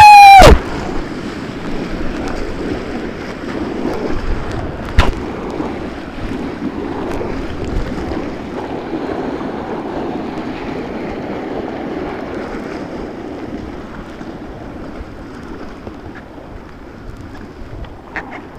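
White-water river rushing and splashing around a kayak, steady and slowly fading toward the end. A short, loud rising shout at the very start, and a single sharp knock about five seconds in.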